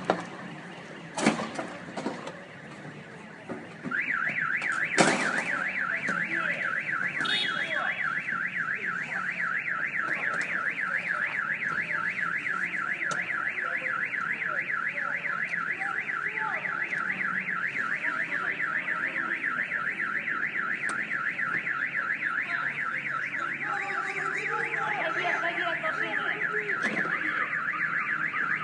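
A few sharp knocks, then about four seconds in a car alarm goes off: a fast warbling siren tone sweeping up and down several times a second without a break.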